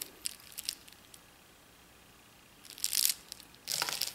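Beads and gold-tone metal bead caps and chain of a multi-layer beaded necklace clicking and rattling against each other as it is handled, in three short bursts: just after the start, around three seconds in and just before the end.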